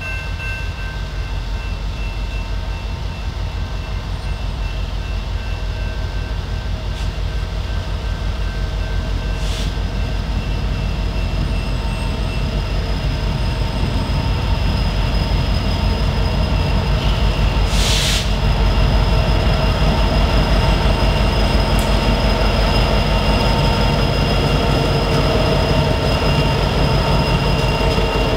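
Norfolk Southern EMD SD60E diesel locomotive approaching with a train and starting to pass, its deep engine rumble slowly growing louder, with steady high-pitched ringing tones over it. A short hiss about eighteen seconds in.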